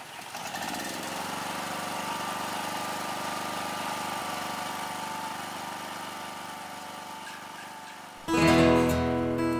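Portable petrol generator running steadily. About eight seconds in, louder acoustic guitar music comes in over it.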